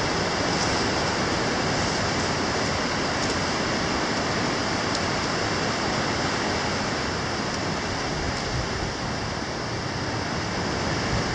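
A steady, even rushing noise with no distinct events, of the kind made by wind or running water.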